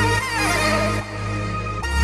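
Background music: a melody that slides up and down in pitch over deep, held bass notes.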